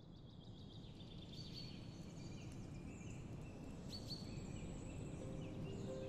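Outdoor ambience fading in: a steady low noise with small birds chirping high and thin throughout, short rising calls standing out about a second and a half and four seconds in. Soft held music notes come in near the end.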